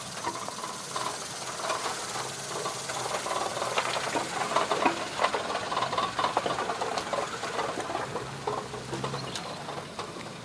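Mitsubishi Pajero Sport crawling over a rough, tilted off-road track: a low engine hum under many irregular knocks, clicks and creaks from the body and suspension, busiest around the middle.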